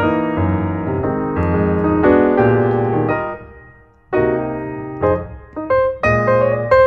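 Background piano music: a solo piano playing chords and a melody, with a brief pause about four seconds in before it resumes.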